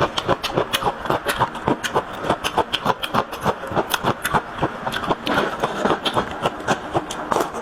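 Close-miked chewing and mouth smacking as a person eats soft braised pork meatballs, with rapid, irregular wet clicks several times a second.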